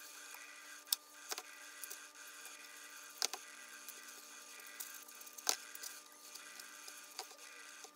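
Scattered sharp metal clicks and taps, about half a dozen, from a screwdriver and gloved hands working the end cap off a 6-volt Autolite starter, over a faint steady hum.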